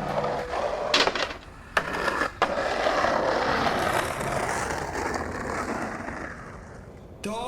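Skateboard: a few sharp clacks of the board striking the ground in the first couple of seconds, then the wheels rolling over pavement, slowly fading away. There is a sudden cut to a different sound just before the end.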